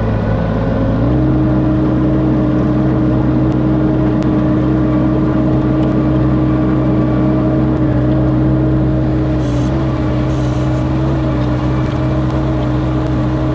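Aerial lift's engine running steadily, stepping up to a higher engine speed about a second in and holding there.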